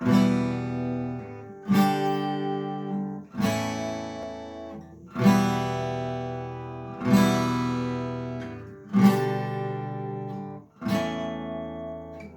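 Acoustic guitar strumming slow chords, one about every two seconds, each left to ring out and fade before the next; the instrumental lead-in to a sung song.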